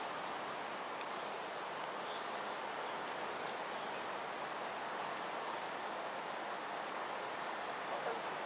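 Steady insect chorus: an unbroken high-pitched shrilling with a still higher band above it.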